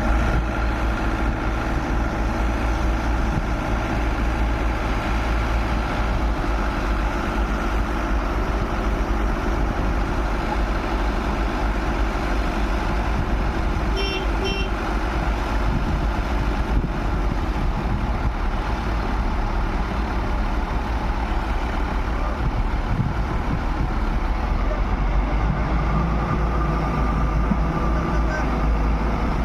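Heavy diesel construction machinery running steadily with a deep rumble, and a short series of high beeps about halfway through.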